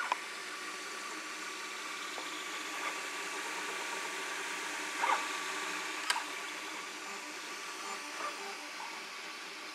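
Ord Bot 3D printer running a print at high speed: a steady mechanical noise with a thin steady tone, and a couple of short clicks about five and six seconds in.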